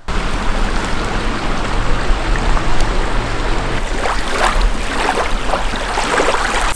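Small waves lapping on a sandy lake shore, with several brighter splashes in the second half, under a heavy wind rumble on the microphone.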